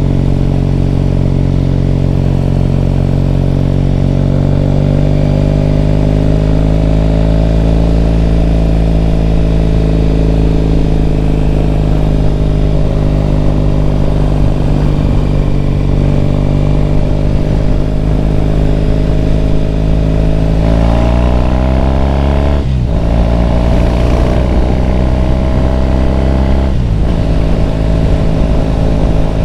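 Triumph Bonneville T100's parallel-twin engine and exhaust, heard from the bike under way: a steady cruise, then the revs climb about two-thirds of the way in, drop suddenly at a gear change, and drop again at a second shift a few seconds before the end.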